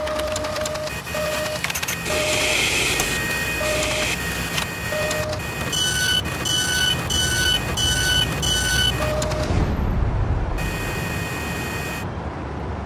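Machine sound effects for an animated gantry machine: continuous mechanical whirring and clicking, with a run of five short electronic beeps about halfway through.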